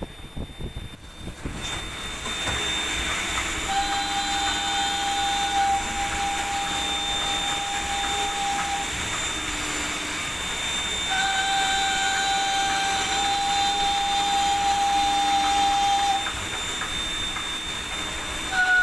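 Metalworking machine tool running with its spindle turning: a steady hiss and rumble. A steady high whine comes in twice, for about five seconds each time.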